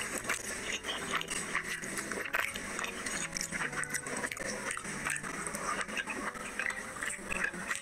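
Close-miked eating: wet chewing and lip smacking with rapid small clicks, mixed with fingers squishing paratha through thick chicken curry gravy.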